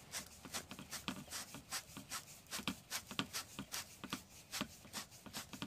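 Column pipe being turned by hand to screw it into the coupling of the pipe below: a quick, irregular run of faint clicks and scrapes from the threads and from hands gripping and rubbing the pipe, about four or five a second.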